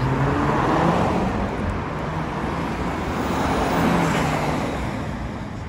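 Cars driving close past one after another, with engine and tyre noise swelling as each goes by: loudest near the start and again about four seconds in.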